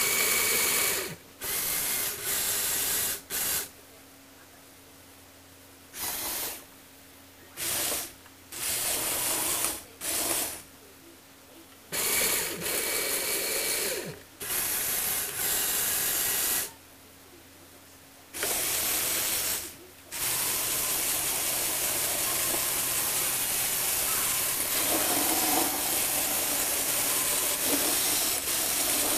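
Small electric gear motors and plastic gears of a remote-controlled Lego Technic vehicle whirring as it drives. It runs in short start-stop bursts with quiet gaps, then runs continuously for the last third.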